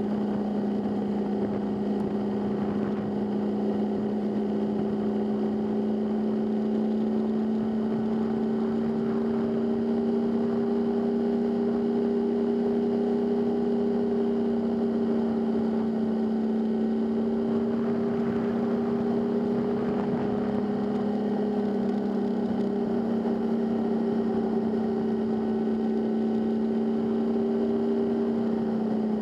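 Motorcycle engine running at a steady cruise, an even drone that rises a little in pitch past the middle and then settles back.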